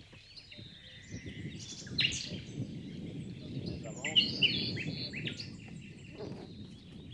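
Hands stirring damp fishing groundbait mixed with maggots in a plastic bucket, a soft continuous grainy rustle, while birds chirp in the background, loudest about two and four seconds in.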